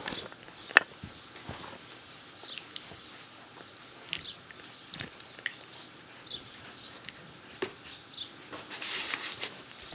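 Three-and-a-half-week-old Rottweiler puppies giving brief high squeaks every second or two, with small clicks and rustles as they mouth and nuzzle a hand.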